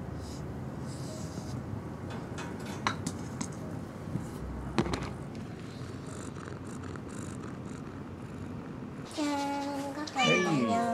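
A cat purring steadily close to the microphone while it is being stroked. Near the end a cat meows loudly, a long call that wavers in pitch.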